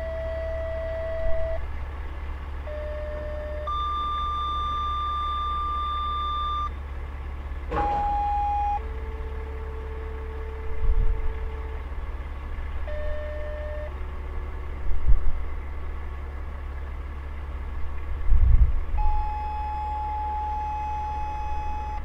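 Fire dispatch paging tones, likely heard over a radio: steady electronic beeps in sequential pairs, a short tone followed by a longer tone at a different pitch, repeated with different pitches and short gaps. Under them runs the constant low idle of a semi-truck's diesel engine, with a few dull thumps.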